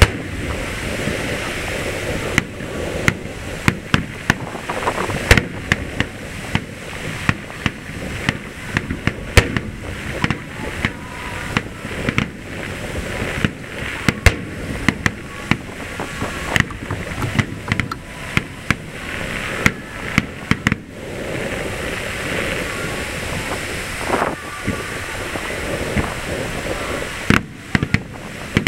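Aerial firework shells bursting in a rapid barrage, several sharp bangs a second over a steady background hiss: the finale of a fireworks display. The bangs thin out after about 20 seconds, leaving mostly background noise, with a few more near the end.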